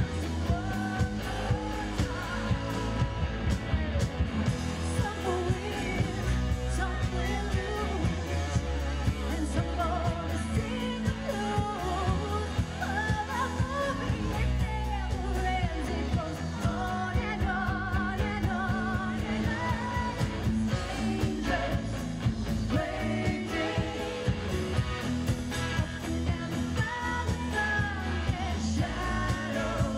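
Live rock band playing a song, a woman singing lead over drums and guitars with a steady beat.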